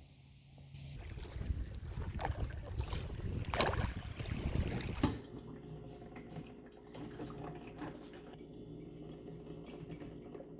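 Water running for about four seconds, then stopping, leaving a faint steady low hum.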